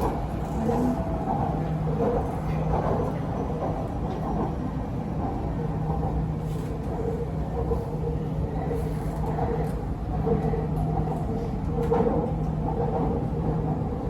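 Cabin noise of an MRT Purple Line electric metro train running between stations: a steady rumble of wheels on rail, with a low hum that comes and goes.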